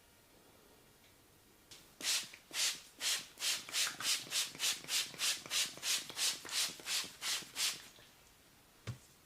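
Hands rubbing briskly in an even rhythm, about three strokes a second, for some six seconds. Near the end comes one short knock.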